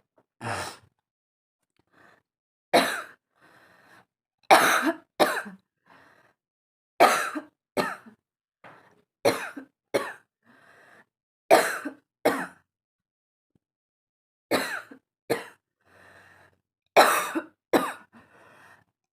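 A woman deliberately forcing coughs: hard, sharp coughs, mostly in pairs, repeating about every two and a half seconds, with short breaths drawn in between. The coughing is strained enough that it leaves her throat itchy.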